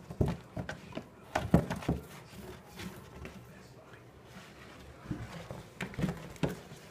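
A dog nosing and pawing at a cardboard 12-pack soda box, giving irregular knocks, thumps and scrapes of cardboard. The loudest knocks come about a second and a half in and again near the end.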